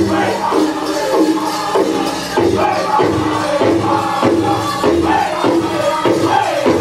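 Powwow drum group singing a contest song: men's voices in unison over a steady, evenly struck big drum, with the melody falling in repeated phrases.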